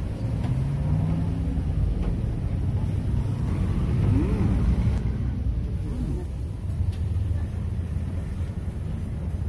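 Road traffic: a steady low engine rumble from motor vehicles, with a brief rising-and-falling tone a little past four seconds in.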